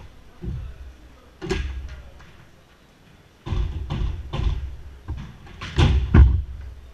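Jorkyball being kicked and bouncing off the walls of the enclosed court: a run of sharp thuds and bangs with short gaps, coming thick and fast from about three and a half seconds in, the loudest pair near the end.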